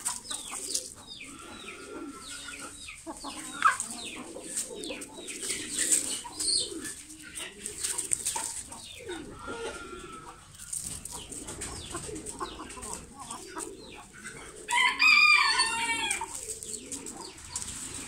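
Long-tailed parrot-beak gamefowl roosters clucking on and off, with one loud crow lasting about a second and a half near the end.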